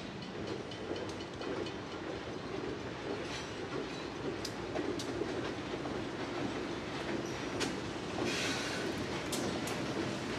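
Freight train rolling slowly past: a steady rumble of wheels on rail, with scattered sharp clicks of wheels over the rail joints and a short high hiss about eight seconds in.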